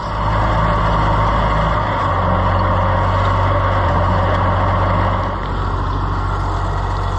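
Loader tractor's engine running steadily, then dropping to a quieter, slower idle about five seconds in.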